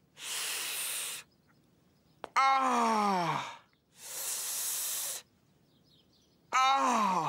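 A man's cartoon voice in pain, clutching a hurt knee: long hissing breaths sucked in through clenched teeth alternate with groans that fall in pitch. There is a hiss, a groan about two and a half seconds in, a second hiss, and another groan starting near the end.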